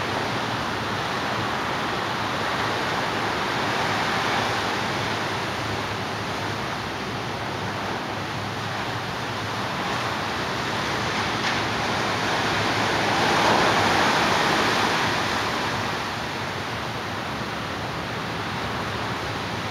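Ocean surf breaking on a sandy beach: a steady rushing that swells now and then, loudest a little past the middle.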